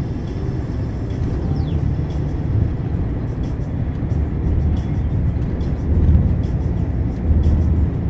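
Steady low engine and tyre rumble from inside a moving vehicle's cab at road speed, with faint light rattles.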